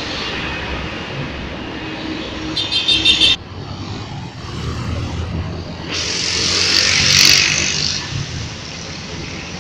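City buses and street traffic driving by: a bus runs close past, and the sound drops off abruptly about three seconds in. Engine rumble continues as another bus approaches, with a loud hiss swelling about six seconds in and fading about two seconds later.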